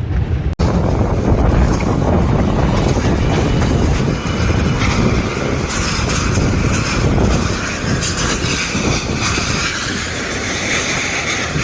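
Storm-force wind gusting hard and buffeting the microphone, a loud rushing roar that runs on without letting up.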